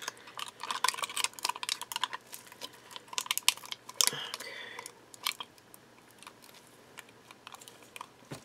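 Dense crackling and crinkling as a rose is pressed into a silicone skull mould by gloved hands, thinning to scattered small clicks and handling noises in the second half, with a brief squeak about four seconds in.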